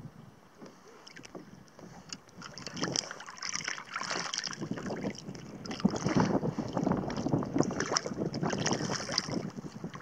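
A hooked pejerrey splashing and thrashing at the water's surface beside a kayak as it is reeled in, over water lapping and wind. The splashing starts about two seconds in and is loudest in the second half.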